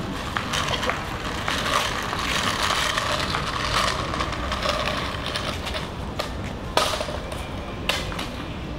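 Steady outdoor background noise, a hiss with no words in it, with a few sharp clicks or knocks scattered through it. The loudest clicks come near the end.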